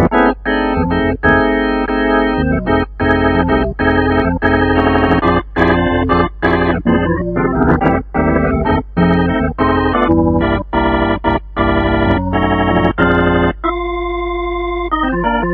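Casio MZ-X500 arranger keyboard playing an organ voice: chords struck and re-struck with many short breaks over a steady low bass. Near the end a chord is held for about a second and a half, then quicker notes follow.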